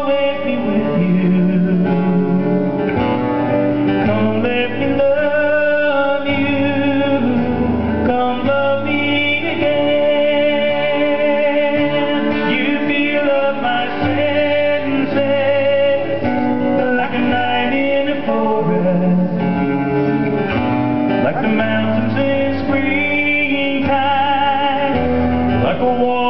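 Live acoustic guitar and keyboard duo playing a song, with singing.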